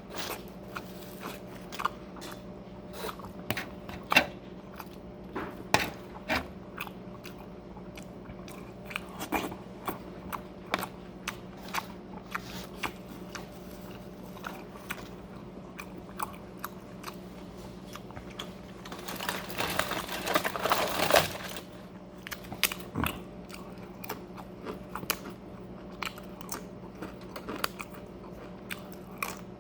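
Close-up mouth sounds of a person eating: biting, crunching and wet chewing in many short snaps, with a denser run of crunching about twenty seconds in. A steady low hum runs underneath.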